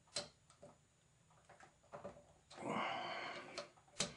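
Small clicks and ticks of the circuit breaker's wire terminals being cinched down and the wires handled, with a sharp click just after the start and another near the end. A little past halfway comes a breathy exhale lasting about a second, the loudest sound here.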